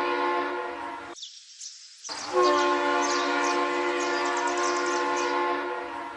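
A long horn blast, a steady chord of several tones. It breaks off about a second in, sounds again from about two seconds in, and holds until it cuts off at the end.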